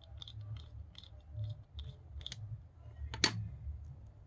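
Small, sharp clicks, about two or three a second, from handling and unscrewing the cap of a spinning-reel handle knob. One louder click comes about three seconds in.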